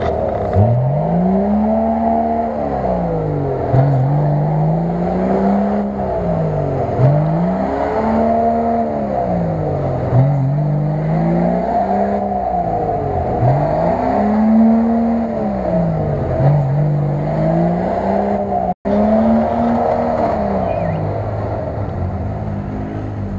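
Toyota Land Cruiser 80's engine revving up and dropping back again and again, about every two seconds, as it works to push through deep mud.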